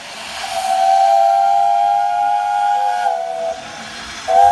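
Steam whistle blowing one long blast of several notes sounding together over a steam hiss, the pitch stepping slightly lower before it stops, then a short second toot near the end.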